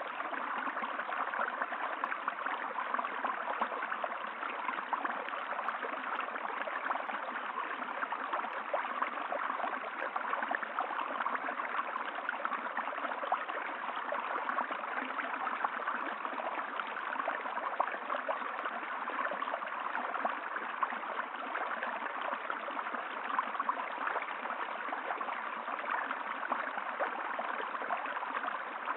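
Running water of a stream, flowing steadily and evenly.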